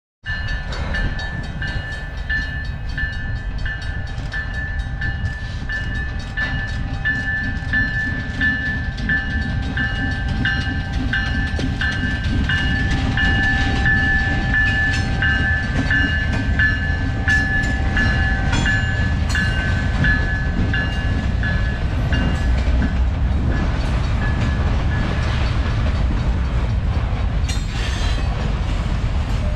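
Canadian Pacific diesel freight locomotive rumbling past, hauling covered hopper cars, with a bell ringing in steady repeated strokes that stops about two-thirds of the way through. Toward the end the hoppers' wheels rattle and click over the rails as the cars roll by.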